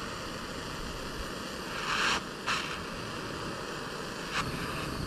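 Wind rushing over the microphone as a steady hiss, with two short louder bursts of hiss about two seconds in and a brief one near the end.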